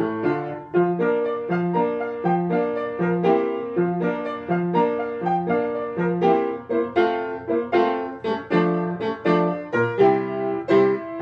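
Upright piano played solo: a steady, even stream of notes and chords over a regularly repeating lower line.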